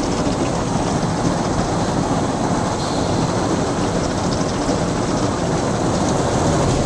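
Ryko Softgloss XS 2.0 car wash's wheel scrub brushes working the tyres along with water spray: a loud, steady mechanical wash noise heard from inside the car, muffled through the body and glass.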